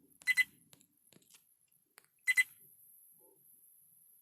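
Viofo A129 Duo dash camera beeping: a pair of short, high beeps about every two seconds. The owner puts this alert down to no SD card being inserted.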